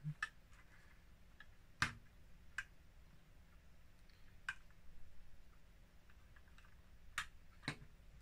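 Scattered light plastic clicks and knocks from a Lego garbage truck being handled on a wooden table, about six spread unevenly, the loudest about two seconds in.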